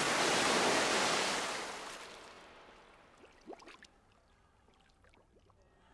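Water churning and washing after a body crashes into a shallow pond, loud at first and dying away over about two seconds, then a few faint small sounds.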